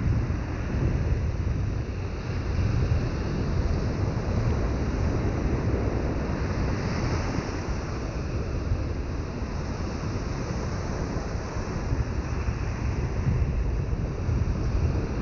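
Ocean surf breaking and washing up a sandy beach, a steady rushing noise, with wind buffeting the microphone in a low, uneven rumble.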